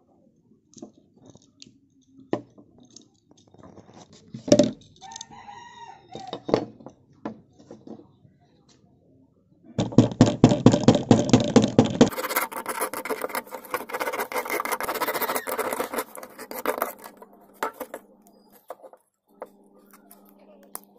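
Scattered light metal clicks, then a rooster crowing once about five seconds in. About ten seconds in, rapid, dense scraping of metal on the crusted, rusty blade of an old masonry trowel starts and runs for several seconds. The scraping is the loudest sound.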